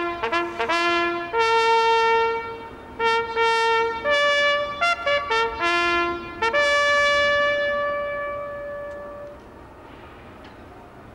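Ceremonial trumpet sounding a military bugle call: a run of quick short notes, then longer held notes, ending on a long note that fades away about nine seconds in.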